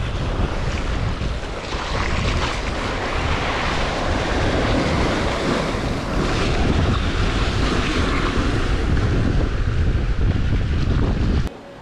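Wind buffeting the microphone over sea surf washing against a seawall and its concrete tetrapods, a loud steady rush with a heavy low rumble. It cuts off suddenly near the end.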